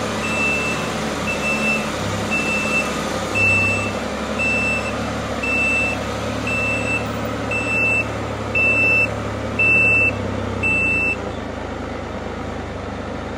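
2018 Can-Am Spyder RT's parking-brake warning beeper giving a steady high beep about once a second, then stopping about eleven seconds in. It sounds because the parking brake is stuck by its known not-releasing fault and has only been released by hand, by backing off the brake cable, while the parking-brake light stays on.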